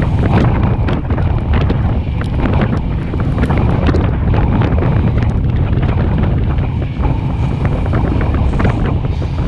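Heavy wind buffeting the microphone of a camera riding on a moving grass-fire rig, over the rig's steady low engine and road rumble, with frequent sharp clicks throughout.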